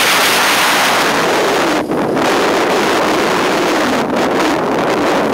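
Loud, steady rush of wind buffeting the microphone while skiing downhill, mixed with the hiss of skis sliding on packed snow.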